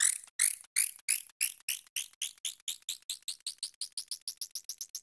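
A 'squirrel laugh' sound clip played back greatly sped up, from 5x toward 13x speed, heard as a string of short, high chirps. They start at about two or three a second and grow faster, shorter and fainter, reaching about eight a second near the end.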